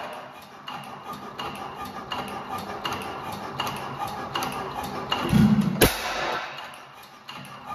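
1912 Fairbanks Morse type N 5 hp single-cylinder gasoline engine running, its flywheels carrying it between firings with a steady mechanical click about every 0.7 seconds. It fires once with a sharp bang about six seconds in, just after a short low chuff.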